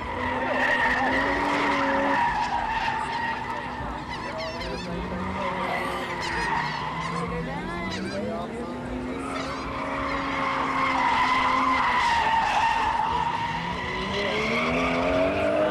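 Drift car sliding sideways with a long, steady tyre squeal held for several seconds, under its engine revving hard. The engine pitch sags in the middle, then climbs again near the end as the car is driven through another slide.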